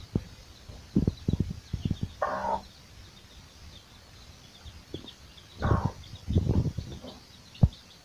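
Mother hen clucking in short, low bursts, with a couple of louder calls, while her chicks peep faintly and continually in the background.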